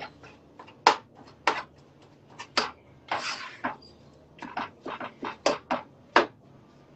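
Irregular sharp clicks and knocks, about a dozen, as if objects are being handled or set down, with a short rustling hiss about three seconds in.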